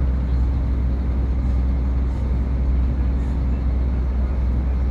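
Tanker's shipboard machinery running steadily during cargo loading: a constant deep drone with a steady hum in it.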